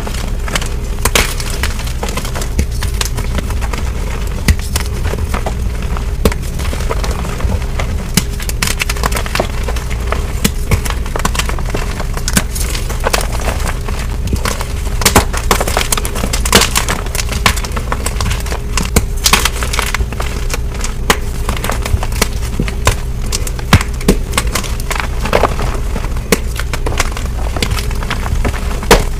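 Gym chalk blocks being crushed and crumbled, with dense, crisp crunching and many sharp snaps, over a steady low hum.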